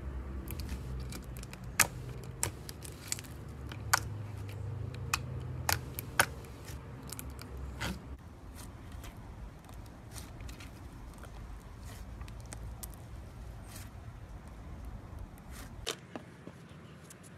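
Glossy glitter slime being stretched, folded and pressed by hand: many sharp clicking pops of trapped air, thickest in the first half, over a low steady rumble that stops near the end.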